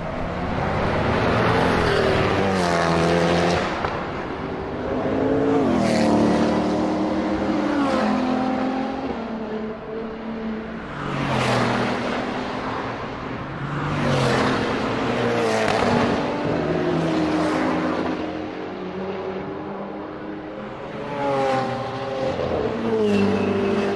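Several sports cars accelerating past on a race track one after another, each engine note climbing in pitch and then dropping, the sound swelling and fading with each pass.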